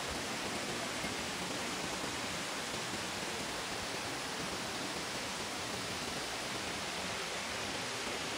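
Steady, even rush of water from a mountain gorge stream.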